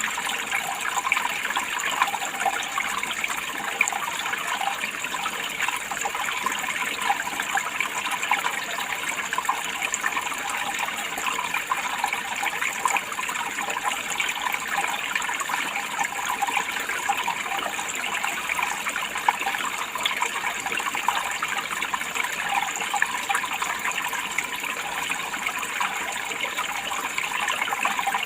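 Running water, a steady, even rush without pauses or changes.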